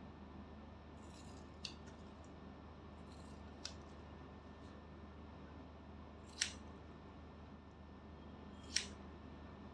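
Hair-cutting scissors snipping through hair: four sharp separate snips a couple of seconds apart, the two loudest in the second half, with a few fainter snips between. A low steady hum runs underneath.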